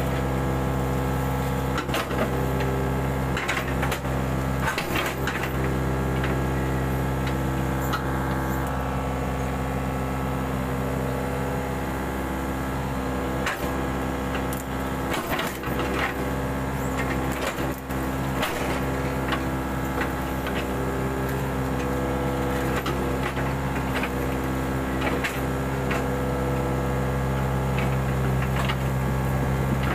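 Mini excavator's diesel engine running at a steady speed, with scattered knocks and cracking sounds from the machine at work.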